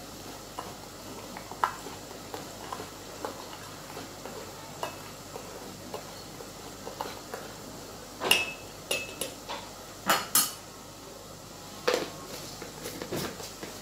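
Metal spoon stirring kheer in a stainless steel pot, with faint scrapes and taps, then several sharp metallic clinks with brief ringing from about eight seconds in as the spoon strikes the pot.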